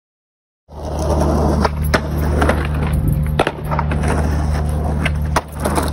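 Skateboard wheels rolling over rough concrete, with sharp clacks and knocks of the board hitting and riding a painted wooden ramp, over a steady low hum. The sound starts abruptly a moment in.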